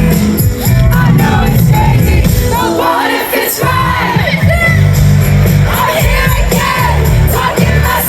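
Loud live pop music at an outdoor festival concert: full band with heavy bass and a lead vocal, and the crowd singing and cheering along. The bass drops out briefly about three seconds in.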